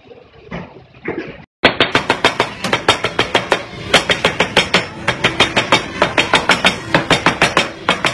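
Knife chopping rapidly through folded flatbreads onto a plastic cutting board, in quick even strokes at about six a second. It starts about a second and a half in.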